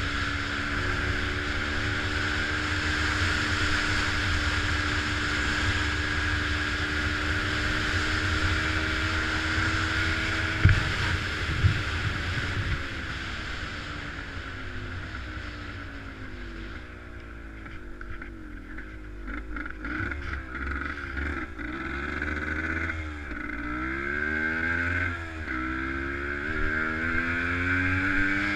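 A vehicle's engine running at a steady speed, then revving up and down again and again in the second half, with two sharp knocks about eleven seconds in.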